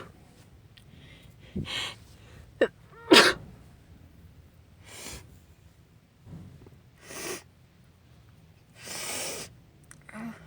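A woman sneezing in a fit: a sharp catch of breath and a loud sneeze about three seconds in, with a smaller one just before. Several shorter noisy breaths follow, and a longer one near the end.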